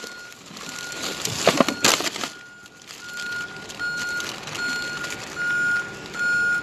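An electronic beeper repeating one high tone steadily, about five beeps every four seconds. Plastic bags rustle briefly about one and a half to two seconds in.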